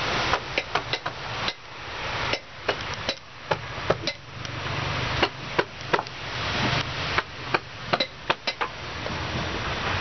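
Hammer blows: about two dozen sharp strikes at an uneven pace, often coming in quick pairs, with short gaps between runs.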